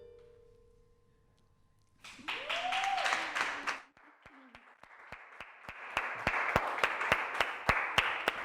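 The last ukulele note rings out and fades, followed by a second of near silence. Then comes applause from a small group: a first burst with a short whoop about two seconds in, then steady hand clapping that builds about halfway and keeps going.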